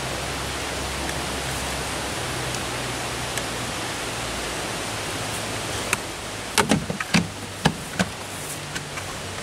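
Steady hiss with a faint low engine hum in the background, then about five sharp knocks between roughly six and eight seconds in: a wooden paddle being picked up and bumping against the canoe's hull.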